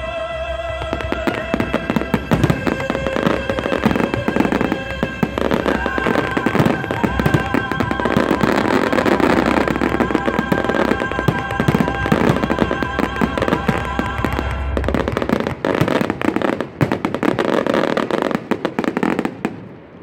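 Dense barrage of aerial firework shells bursting and crackling, with the show's music playing under it. The music stops about three-quarters of the way through, leaving the bursts and crackle alone until they die away at the very end.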